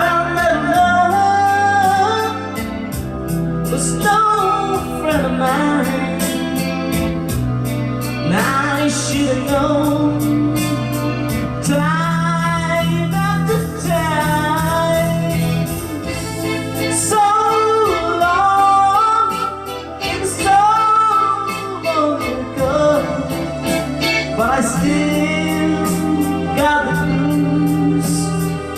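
A singer performing a song over a karaoke backing track, with a steady beat and sustained bass notes underneath the voice.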